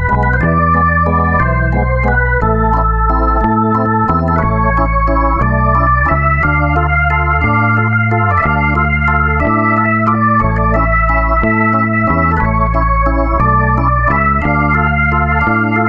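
Background instrumental music: an organ-style keyboard playing held chords over a bass line that steps from note to note.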